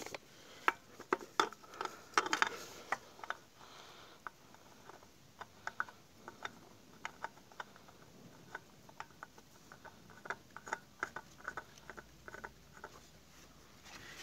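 Light, irregular clicks and scrapes of a new spin-on oil filter being handled and screwed onto its mount by hand, busiest about two seconds in.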